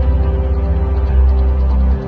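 Background music of held chords over a deep bass.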